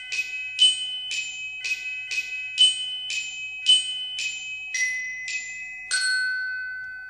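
A short logo jingle played on a bright glockenspiel-like mallet instrument: single struck notes about two a second, ending on one long ringing note that fades out.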